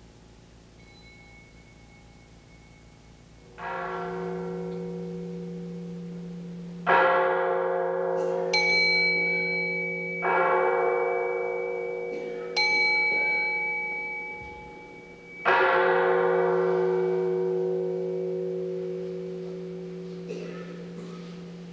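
Buddhist temple bells struck one at a time, six strikes in about twelve seconds. Each strike rings on and fades slowly. A deep steady hum lingers under the ringing, and a smaller, higher-pitched bell joins twice with a long thin ring.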